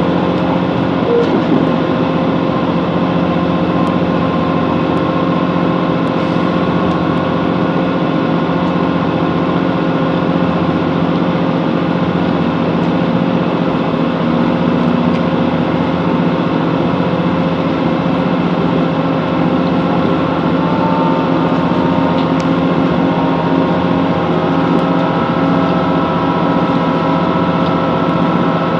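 Chiltern Railways Class 165 Networker Turbo diesel multiple unit running between stations, heard from inside the carriage: a steady diesel engine drone mixed with running noise from the wheels on the track.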